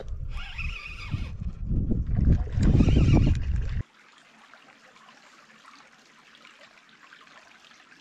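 A loud, fluctuating low rumble for about the first four seconds, then a sudden cut to a shallow creek trickling faintly over rocks.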